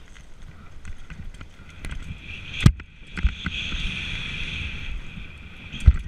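Mountain bike ridden fast over a bumpy dirt trail: tyres on the dirt and the bike rattling, with a sharp knock about two and a half seconds in and another near the end. A steady high whir runs through the middle.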